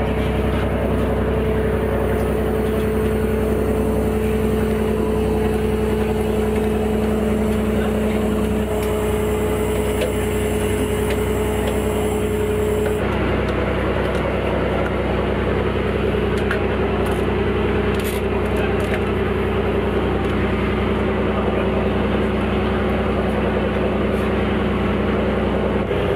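Fishing cutter's trawl winch and engine running steadily as the trawl rope winds onto the winch drum: a loud, even mechanical drone with a steady hum, changing a little about halfway through.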